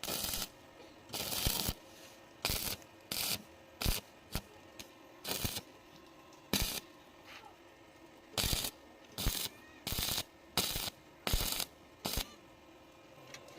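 A welder laying a string of short tack welds on hollow iron tubing: about fifteen brief noisy bursts at irregular intervals, with quiet gaps between them.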